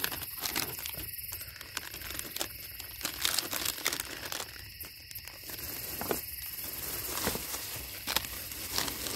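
Crinkling and crackling of packaging being handled close by, in irregular small clicks and rustles.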